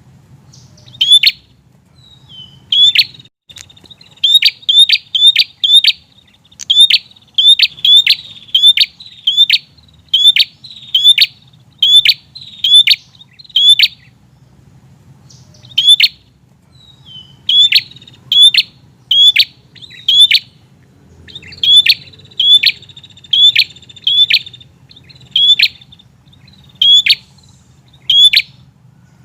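Prinia (prenjak) calling insistently: a long series of sharp, loud, down-slurred chip notes, roughly one or two a second, broken by a couple of brief pauses. This is the persistent 'gacor' calling used as a lure for wild prinias.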